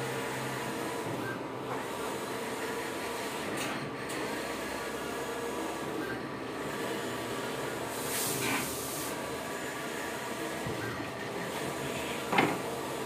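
Wide-format flex banner inkjet printer running: a steady mechanical whir, with a faint swish recurring about every two seconds as the printhead carriage sweeps across. One sharp click near the end.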